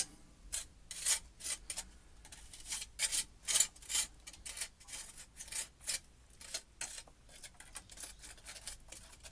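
A hand tool scratching and scraping soft lime mortar out of the joints between stones, in short uneven strokes about two a second. The pointing is being scraped back while still fairly soft, to bring out the edges of each stone.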